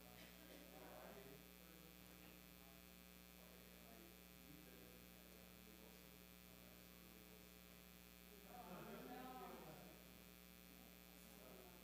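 Near silence over a steady electrical mains hum from the sound system, with faint distant voices; one voice comes up briefly near the end.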